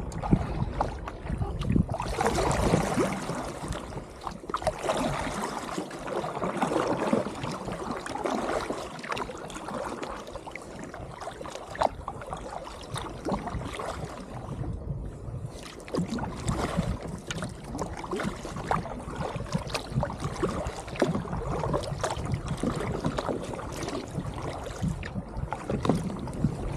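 Water sloshing and lapping against a fishing kayak, with irregular small splashes and ticks, and some wind rumble on the microphone.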